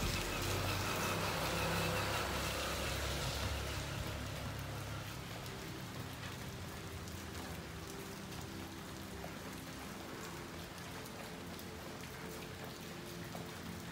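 Steady rain falling, a continuous hiss of drops. It is louder for the first three or four seconds, then settles to an even level.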